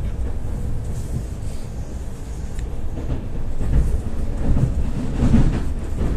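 Ivolga 4.0 electric train heard from inside the passenger car while running: a steady low rumble of wheels on the rails, swelling a little louder in the second half.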